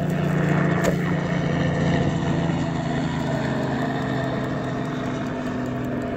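An engine running steadily nearby, a low, even hum, with one light click about a second in.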